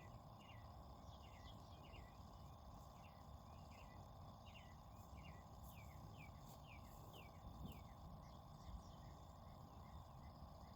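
Faint outdoor bird chirping: short falling chirps repeating about twice a second, over a steady insect drone and a low rumble.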